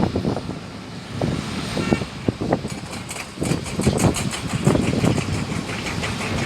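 Heavy diesel machinery running at a mine loading site, an excavator working beside a dump truck: a continuous low engine rumble with irregular heavy thuds and surges. There is a brief whine about two seconds in and a fast ticking in the second half.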